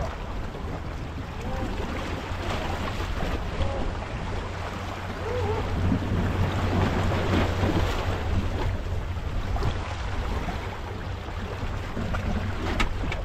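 Wind on the microphone and harbour water lapping against the rock ledge, with a steady low hum underneath and one sharp click near the end.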